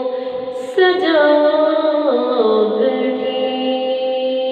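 A woman sings a Punjabi devotional kalam (naat) solo into a microphone in long, drawn-out melismatic notes. She takes a quick breath just before a second in, then sings a phrase that steps down in pitch.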